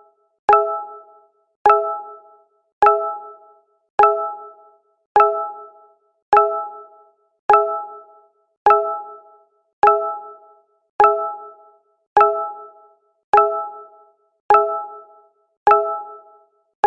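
Google Hangouts notification sound played on a loop: a short chime of a few tones at once that starts sharply and fades fast, repeating about once every 1.2 seconds.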